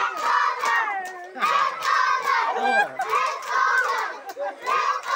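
A group of children shouting and yelling over one another in high-pitched voices, with a few sharp smacks among them.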